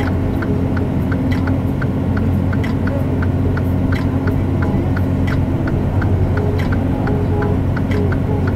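Steady engine and road drone inside a semi-truck's cab, running down a long steep downgrade. A light, even ticking comes through about four times a second.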